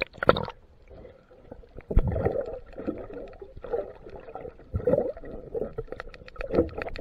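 Water heard through a camera held underwater: a splash and burst of bubbles as it goes under at the start, then muffled gurgling with irregular dull thumps. A quick run of faint clicks starts near the end.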